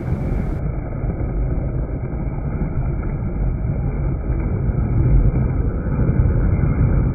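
XLF X03 brushless RC truck pushing nose-to-nose against a larger RC rock crawler, its tyres spinning and scrabbling on loose gravel under load. A steady, dense noise that grows a little louder over the seconds.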